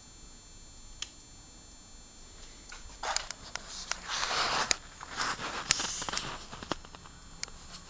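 Quiet room tone with a single click about a second in, then a few seconds of irregular rustling and scuffing with sharp clicks, like footsteps and a phone being handled.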